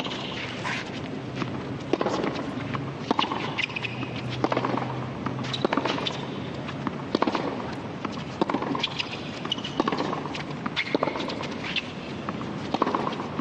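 Tennis rally on a hard court: racket strikes and ball bounces trading back and forth, a sharp pop about once a second.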